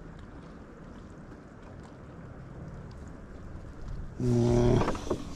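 Light wind and water around a moored canoe, then about four seconds in a short, loud, low grunt at a steady pitch, with a rustle.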